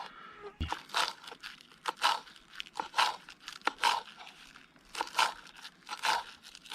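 Knife cutting food into large chunks on a fallen log, about one crunchy cut a second, with the blade meeting the wood.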